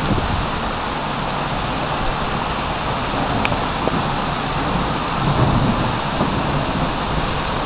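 Heavy rain pouring down steadily in a thunderstorm downpour, with a brief low rumble swelling about five seconds in.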